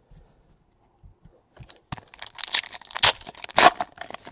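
A foil trading-card pack wrapper (2018 Donruss baseball) being torn open and crinkled by hand, a dense crackling rip starting about two seconds in, after a few faint clicks of card handling.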